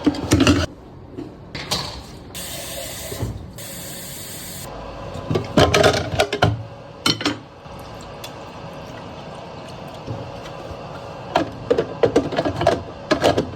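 Handling sounds of home filter-coffee gear: clatters and knocks of equipment being set out and worked, with about two seconds of hissing a few seconds in, broken once briefly.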